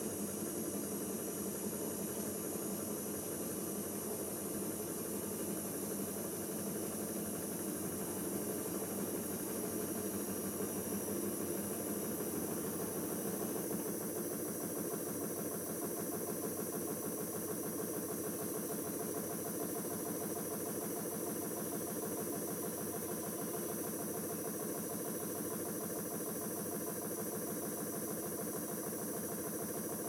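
Siemens iQ WIQ1430 front-loading washing machine running a spin-only cycle with a wet load of towels: a steady motor and drum hum with no break.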